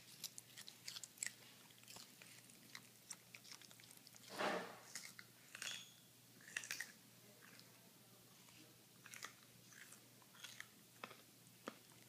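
A toy poodle chewing raw carrot: a scattered series of short, sharp crunches, with one louder rustle lasting about half a second a little over four seconds in.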